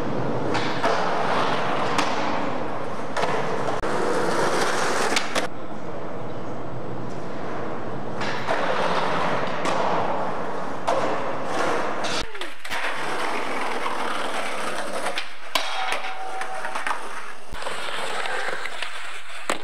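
Skateboard wheels rolling on concrete in long rushing stretches, broken several times by sharp clacks of the board hitting the ground.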